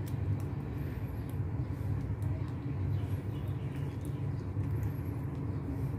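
Steady low background rumble, with faint small clicks and rustles from handling and untwisting the wire pairs of a stripped Ethernet cable.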